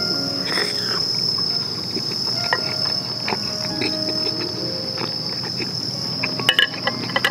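A steady, high-pitched insect chorus, with light taps and a short cluster of sharper clicks about six and a half seconds in.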